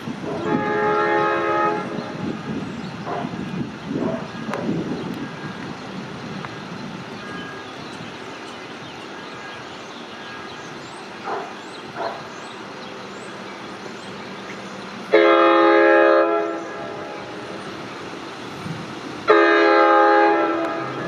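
Nathan K5LL horn on an LIRR DM30AC diesel locomotive sounding: a chord of about two seconds near the start over the rumble of the arriving train, then two loud long blasts in the second half.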